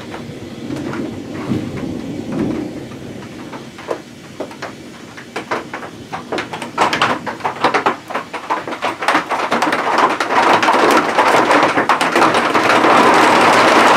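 Heavy rain arriving in a thunderstorm cloudburst: over a low rumble, big raindrops start striking close by about six seconds in, come faster and faster, and merge into a steady, loud downpour near the end.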